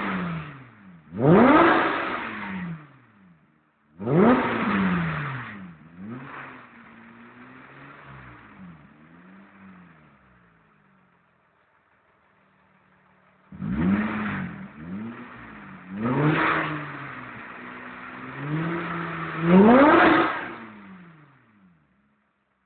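Opel Astra 3.0 V6 revved at standstill through a newly built 63.5 mm stainless Group A exhaust with tubular 'spaghetti' headers and a modified Remus rear silencer. The revs come as quick blips that rise sharply and fall back, with quieter idling between them. Near the end the revs are held steady briefly, then rise to the highest rev before dropping away.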